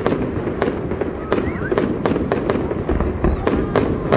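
Aerial fireworks going off in rapid succession: sharp shell bangs several times a second over a constant din of smaller bursts.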